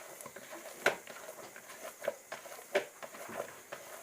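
Hands pulling and handling soft, sticky bread dough, with a few light taps and knocks against the bowl.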